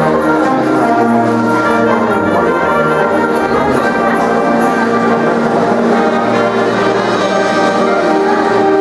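High school symphonic band playing, with brass to the fore in held chords that shift a few times.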